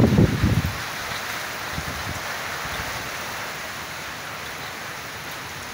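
Steady heavy storm rain, an even hiss. Gusty wind buffets low for about the first second, then drops away.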